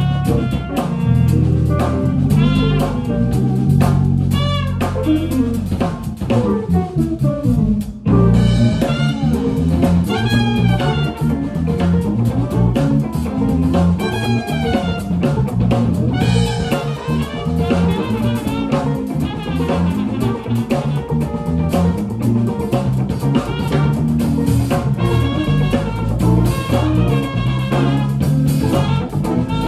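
Live jazz-funk band playing: a steel-string acoustic guitar strumming and picking along with a drum kit and a walking low bass line. Bending lead lines run over the groove, and the music goes on without a break.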